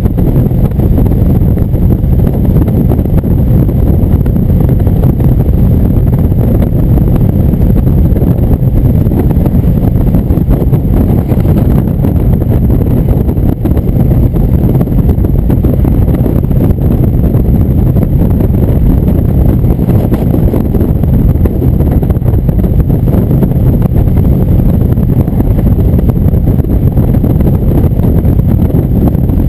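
Heavy wind rushing over the microphone, mixed with an Indian motorcycle's V-twin engine running steadily at highway cruising speed.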